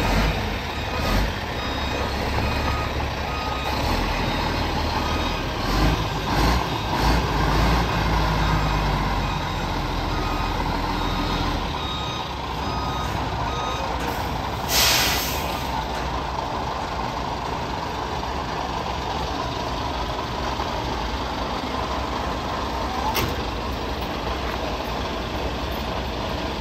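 Semi-truck engine running as it manoeuvres a heavy trailer-mounted drilling rig, with a reversing alarm beeping steadily through the first half. About fifteen seconds in comes a short sharp hiss of air brakes.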